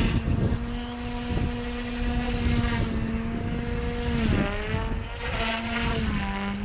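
OMPHOBBY M2 mini RC helicopter's direct-drive brushless motors and rotor running at full power in flight as a steady pitched hum. The pitch dips briefly and recovers about four seconds in, then drops slightly near the end. Wind buffets the microphone underneath.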